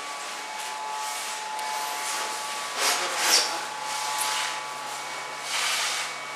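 Steady workshop machinery hiss with a faint high electrical whine, broken by two louder rushes of noise about three seconds in and again near the end.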